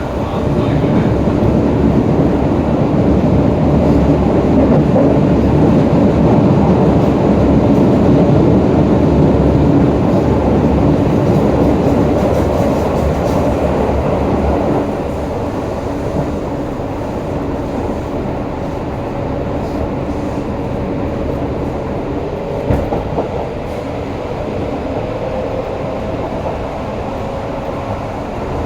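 Onboard running sound of a Hokuso 7300-series electric train with a GTO-VVVF inverter: steady wheel and rail noise with a faint whine from the traction equipment. The sound is louder through roughly the first half and drops to quieter running about halfway through.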